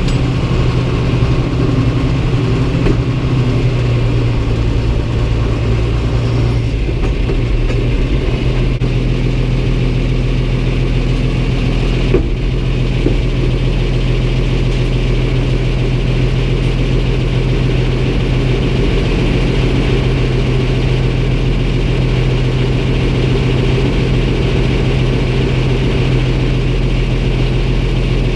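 Tractor engine running steadily, with a slight change in its note about six and a half seconds in.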